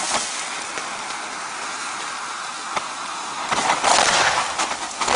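Thermite charge burning against a steel wide-flange web with a steady, dense hiss, growing louder about three and a half seconds in.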